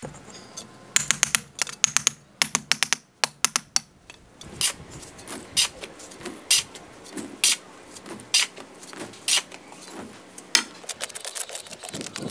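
A series of sharp clicks and knocks from hard objects striking: a quick cluster in the first few seconds, then single sharp strikes at about one a second.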